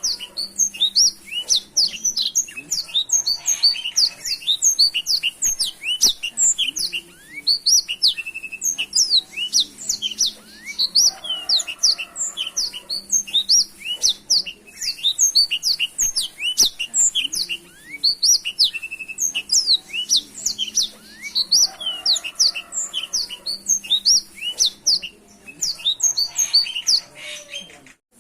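Blackthroat (black-throated canary) singing a continuous, rapid song of short, high chirps and slurred trills, with no pause.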